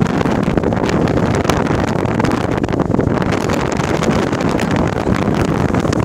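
Wind blowing hard across a phone's microphone on the deck of a moving ship, over the ship's steady rumble.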